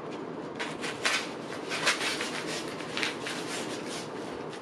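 A blunt letter opener sawing and tearing through the top of a mailing envelope: a run of crackling, rustling paper with a few sharper rips about one, two and three seconds in.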